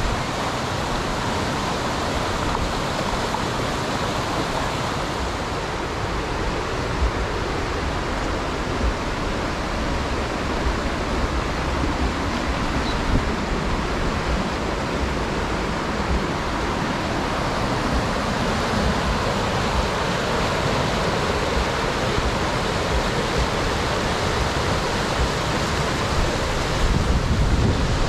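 Mountain river water rushing steadily over rocks, a loud, even wash of noise.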